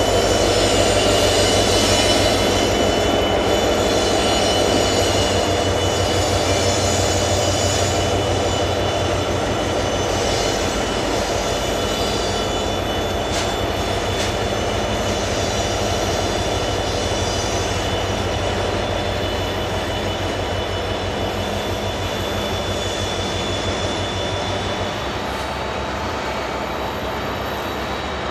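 Diesel-hauled coal train running: a low diesel engine drone and a rumble of hopper wagons, with a steady high wheel squeal over it, slowly growing quieter. The engine drone drops away a few seconds before the end.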